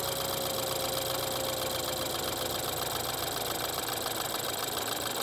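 BMW N20 2.0-litre turbocharged four-cylinder direct-injection engine idling just after starting, with a steady, rapid ticking of injection noise. It sounds loud and rough because the foam noise-insulation cover is off the top of the engine; this is normal for the engine, not a fault with the newly fitted injectors. A faint thin whine fades out about halfway through.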